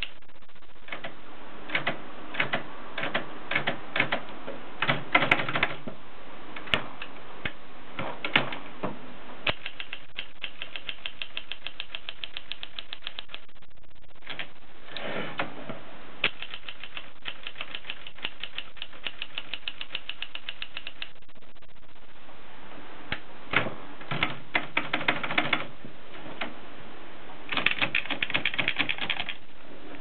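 Gossen Tippa portable typewriter being typed on: keys clacking in quick runs of rapid clicks, broken by a couple of short pauses.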